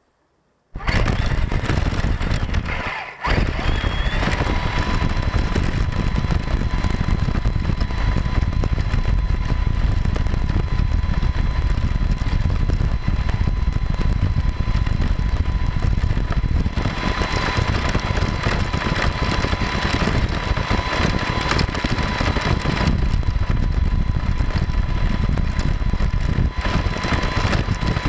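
1/10-scale Axial Deadbolt RC crawler driving over a gravel road, heard from its own onboard camera: a steady rumble and rattle of tyres and chassis on gravel, with a thin steady whine on top. The sound cuts in abruptly about a second in and dips briefly a couple of seconds later.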